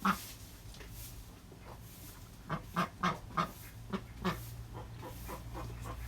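Ducks quacking: one call at the start, then a quick run of about six short quacks a few seconds in, with fainter ones after, over a steady low hum.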